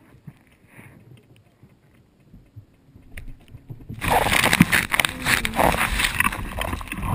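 Faint scuffs and knocks, then about four seconds in a sudden loud rustling and scraping as something rubs against the camera and its microphone.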